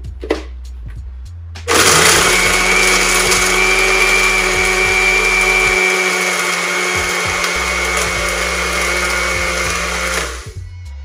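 Small countertop electric blender with a grinder cup, switched on about two seconds in and running steadily with a motor whine, then switched off shortly before the end.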